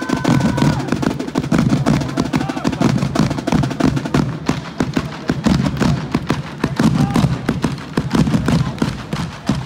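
Marching band drum line of snare and bass drums playing a fast, dense cadence, with a few held higher tones in the first second. The drumming cuts off abruptly near the end.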